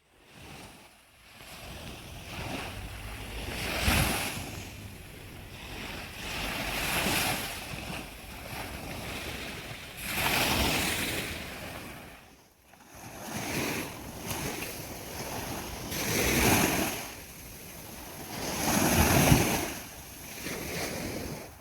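Sea waves breaking on a sandy beach, the surf swelling and washing back every few seconds, with some wind buffeting the microphone.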